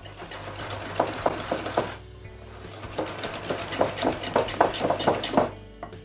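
Wire whisk beating a chocolate batter in a glass bowl: quick clicking and scraping of the wires against the glass, in two bouts with a short pause about two seconds in, stopping shortly before the end.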